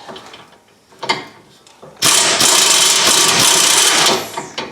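A power wrench runs for about two seconds, starting suddenly about two seconds in, spinning a bolt out of the rear hub assembly; a couple of short metal clinks come before it.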